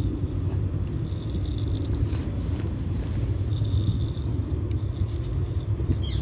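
Steady low rumble with light rattling and scraping over it.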